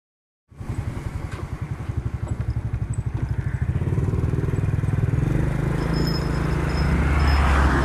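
Small motorcycle's engine running on the move, starting abruptly about half a second in; its beat quickens and grows louder as the bike picks up speed, with a rush of air noise over it.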